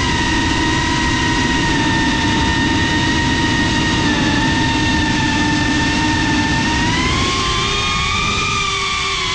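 FPV quadcopter's brushless motors and propellers whining steadily as it flies low, over a rushing noise; the whine rises in pitch about seven seconds in as the drone climbs.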